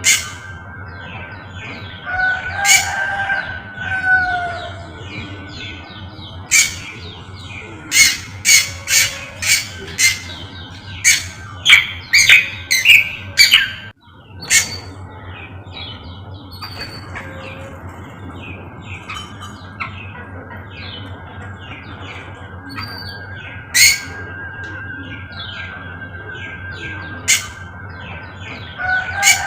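A cucak kombo songbird calling: a string of loud, sharp chirps and squawks, coming thick and fast in a burst about eight to thirteen seconds in, with scattered single calls before and after.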